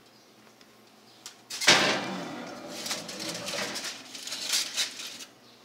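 A foil-covered pan going onto an oven rack: a sudden metal clank about a second and a half in, then scraping and crinkling aluminium foil for a few seconds, stopping abruptly.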